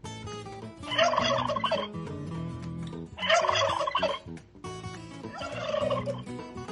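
Turkey gobbling three times, each gobble about a second long, over light background music.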